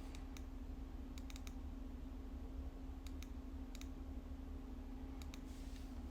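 Faint, scattered light clicks of a pistol being handled, some in quick clusters of two to four, over a steady low electrical hum.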